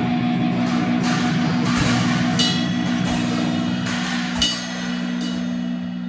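Noise music: a steady amplified drone held on low pitches, with repeated cymbal crashes over it, the loudest about four and a half seconds in.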